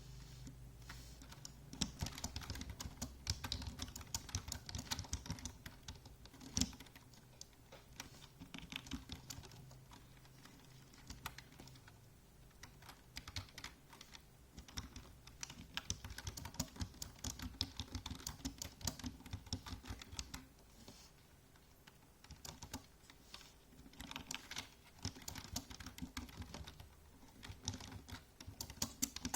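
Computer keyboard typing: fast runs of key clicks in bursts of several seconds, with short pauses between them.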